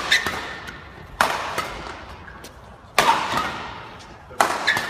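Badminton rackets smacking a shuttlecock back and forth in a fast defensive drill. There are four main sharp hits about one to two seconds apart, each ringing on in the hall's echo, with lighter hits between them and a brief shoe squeak on the court near the end.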